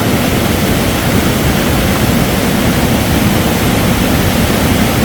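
Loud, steady rush of a fast-flowing river.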